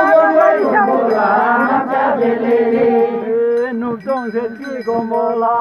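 A group of women singing a traditional Tamang mhane dora song together, in long drawn-out notes.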